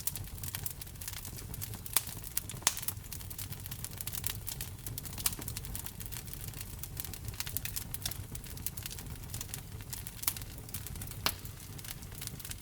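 Wood-burning fire crackling steadily, with scattered sharp pops, the loudest about two and three seconds in and two more near the end, over a low steady rumble.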